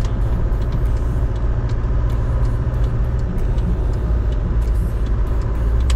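Steady low rumble of a road vehicle driving, with faint scattered clicks and rattles over it.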